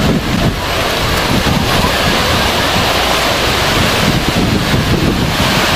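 Sea surf breaking and washing over the shallows, with wind buffeting the microphone.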